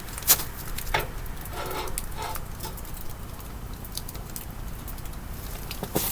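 Sparse light clicks and crackles over a low steady background, with a sharp click about a third of a second in and another at about one second.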